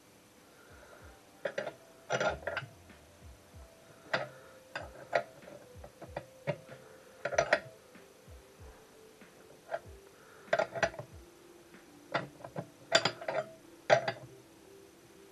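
Irregular metallic clicks, taps and clinks of hand tools and parts on engine metal, some ringing briefly, as the main bearing caps are worked loose. A faint steady ringing tone sits underneath.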